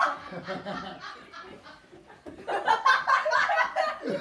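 Several people laughing and chuckling, the laughter growing louder a little past halfway through.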